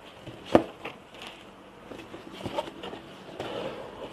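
Cardboard shoe box being handled and set down on a table: one sharp knock about half a second in, then a few lighter taps and a soft rustle of cardboard and paper.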